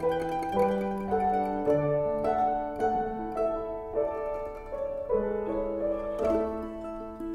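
Acoustic string trio music of banjo, mandolin and double bass: a melodic line of plucked notes over lower held bass notes.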